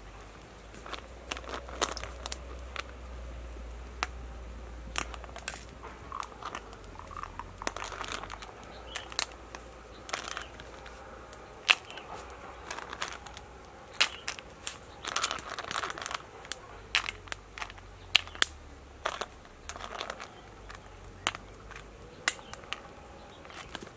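Irregular sharp clacks of shellfish shells knocking against each other and being set down on a flat stone over a small crackling wood fire.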